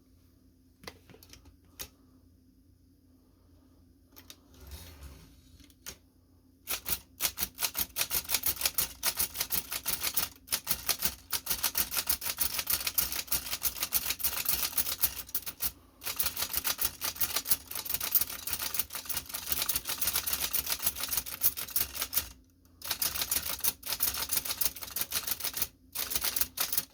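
A Chicago type-sleeve typewriter being typed on: a few single clicks and some handling at first, then a fast, continuous run of keystrokes with a short pause near the end. The freshly cleaned and lubricated machine is typing again.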